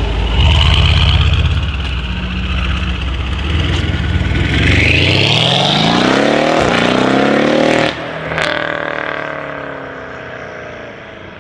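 Mercedes CLS63S AMG twin-turbo V8 with a decat exhaust pulling away hard, with a high turbo whistle over the exhaust note. The revs climb steadily for about three seconds and cut off sharply at an upshift about eight seconds in. The engine then pulls on in the next gear and fades as the car moves off.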